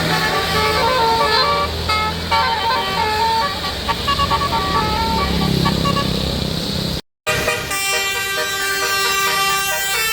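Tour bus 'telolet basuri' musical horn playing a quick tune of short stepped notes over the bus's running engine. About seven seconds in the sound cuts out briefly, then a held chord of horn tones follows.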